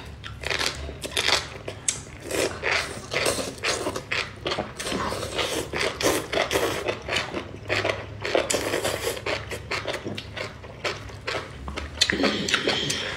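Close-up slurping and chewing of enoki mushroom strands coated in chili broth: wet slurps and crunchy bites in quick, irregular succession.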